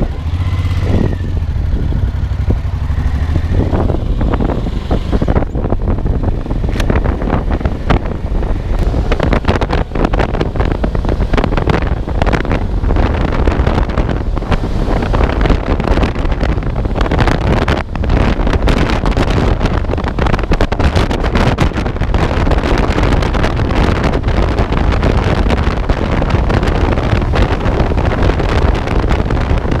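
Motorcycle on the road with its engine running, a steady low note clear for the first few seconds, then heavy wind buffeting the microphone takes over and stays for the rest of the ride.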